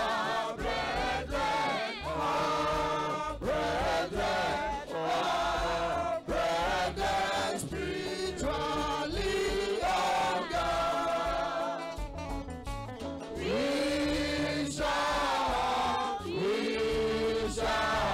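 Church choir of women and men singing a hymn into microphones, voices holding and sliding between long notes over a steady low accompaniment.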